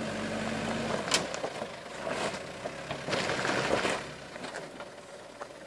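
A 4x4's engine running slowly off-road, with a sharp crack about a second in and bursts of crunching noise around two seconds and again from about three to four seconds in.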